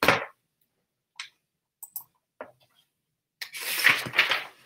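Pages of a hardcover picture book being turned and handled: a quick swish as the book is swung round, a few faint ticks, then about a second of paper rustling near the end as the pages are leafed through.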